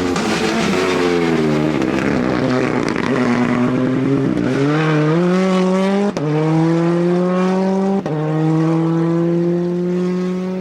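Rally car engine on a special stage: the engine note falls as the car slows, then it accelerates hard, the pitch climbing steadily with quick upshifts about six and eight seconds in and another near the end.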